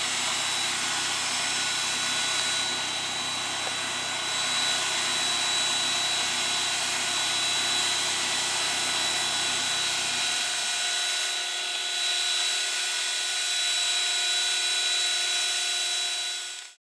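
Cessna 152's four-cylinder Lycoming O-235 piston engine running steadily at low power on the ground, propeller turning. The deep low rumble drops away about ten seconds in, and the sound fades out right at the end.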